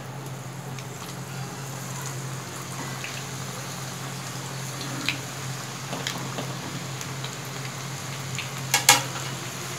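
Onion pakodas sizzling and bubbling steadily in hot oil during their second, high-flame deep fry, which crisps them. A few light clicks and a sharper double knock near the end.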